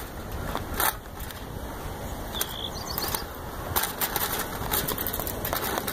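Wind rumbling on a phone's microphone while it is carried, with a few scattered clicks and rattles.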